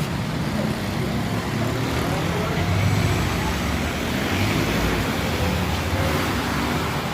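Steady road traffic noise: the continuous rumble and hiss of vehicles running past.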